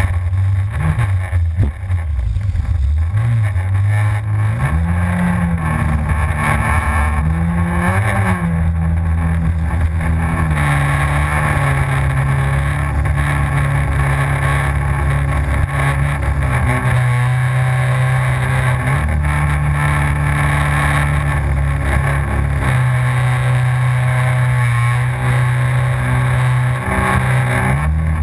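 Yamaha FZS WaveRunner's supercharged four-stroke engine running hard, its pitch rising and falling with the throttle in the first ten seconds and then holding with a few steps. A steady hiss of wind and water runs under it.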